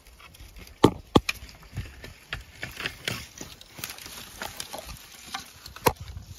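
Heavy elk antler shed being tugged and wrenched where it is stuck. Two sharp knocks come about a second in and another near the end, with smaller scrapes and rustles between.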